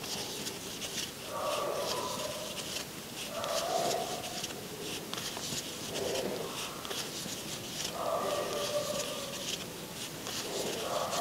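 Crochet hook and acrylic yarn rustling and scratching as single crochet stitches are worked, close to the microphone. A faint pitched sound recurs about every two seconds behind it.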